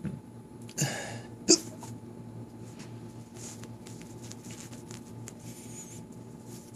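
A man hiccuping: one sharp hiccup about a second and a half in, just after a short rush of noise.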